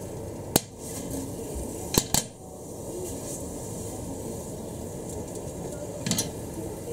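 A spatula knocking and scraping against a frying pan while folding a soft omelette: a sharp click about half a second in, a quick pair of clicks about two seconds in, and another near the end, over a steady low background noise.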